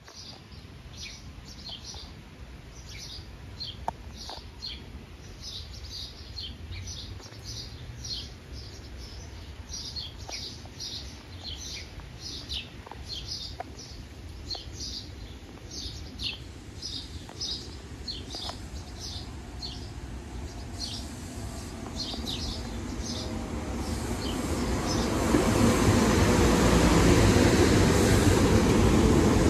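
Small birds chirping repeatedly while a SEPTA electric commuter train approaches; its rumble builds from about two-thirds of the way through and grows loud as the train rolls past close by near the end.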